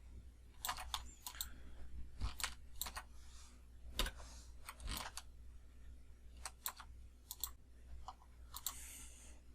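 Computer keyboard and mouse clicks: irregular sharp clicks, some in quick pairs, over a steady low hum.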